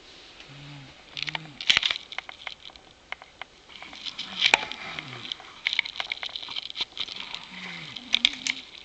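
A sleeping person snoring. The breaths are crackly and sputtering, full of sharp clicks, with a few short low voiced sounds among them, some of them falling in pitch.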